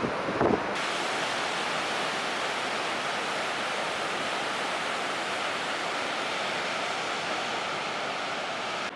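Steady rushing noise of ocean surf and wind along the coast, with a couple of brief low thumps at the very start.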